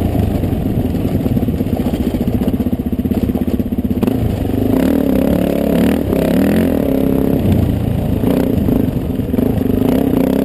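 Dirt bike engine running as it is ridden over a rough dirt trail: steady at first, then from about four and a half seconds in the engine note rises and falls with the throttle.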